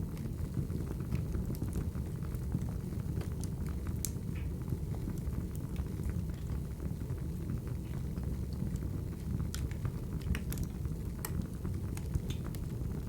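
Crackling wood fire: irregular sharp pops and crackles over a steady low rumble of burning logs.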